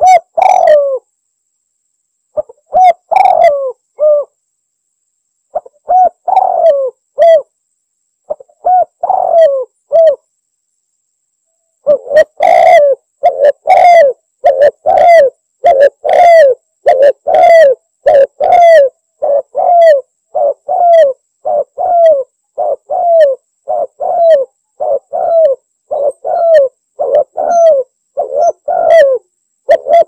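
Spotted dove (tekukur) cooing, a recorded lure call with clean silence between notes. It starts with short phrases of a few coos, then after a brief pause settles into an even run of coos, a little over one a second.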